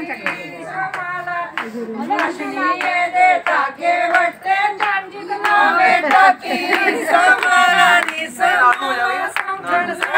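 A group of voices singing together, with hand claps.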